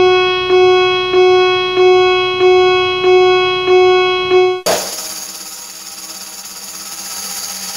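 Music: a single bright pitched note struck about eight times, roughly every two-thirds of a second, each strike fading before the next. A little past halfway it gives way to a steady high shimmer with faint held tones.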